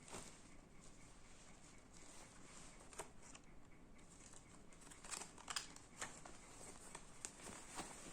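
Faint, scattered rustles and clicks of a package being handled and opened, with the loudest cluster about five to six seconds in.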